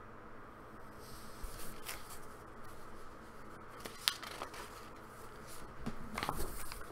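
Paper pages of a small handmade booklet being handled and turned: soft rustles and crinkles, with one sharp tick about four seconds in and more rustling near the end.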